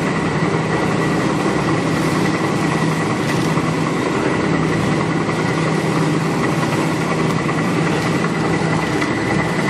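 Planetary-motion jacketed cooking kettle running: its agitator drive makes a steady mechanical hum with a thin high whine as the stirring arm turns through a thick curry.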